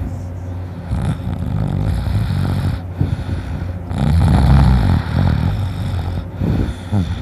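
A man snoring deeply in his sleep, with the loudest snore about four seconds in.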